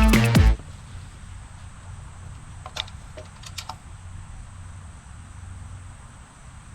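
Music with a heavy beat cuts off about half a second in. What follows is quiet outdoor ambience: a low rumble and a steady thin high tone, with a few light clicks near the middle.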